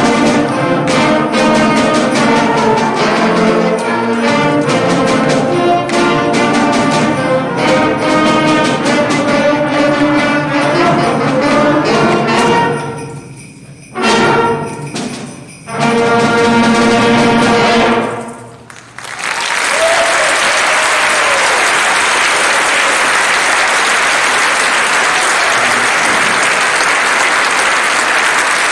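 Instrumental ensemble with prominent brass playing the closing bars of a piece: the music breaks off briefly, a short accented chord sounds, then a final loud passage stops abruptly. An audience then applauds steadily for the remaining ten seconds or so.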